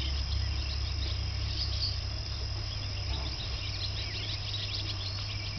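Outdoor field ambience: many small high chirps and a steady high trill over a low rumble of wind on the microphone, the rumble easing about halfway through.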